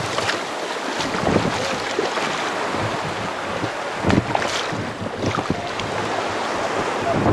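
Surf washing on a beach, with wind buffeting the microphone.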